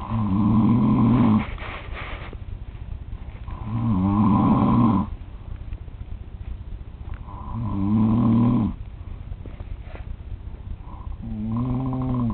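A sleeping man snoring loudly: four long snores, each about a second and a half, coming about every four seconds.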